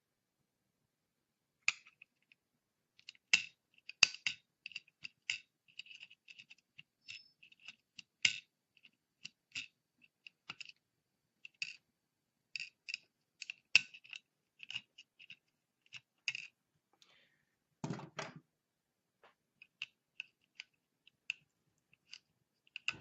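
Pliers snipping and cracking away the plastic housing of a melted pin-header connector on a circuit board: irregular sharp clicks and snaps, several a second at times, with a longer, heavier crackle late on.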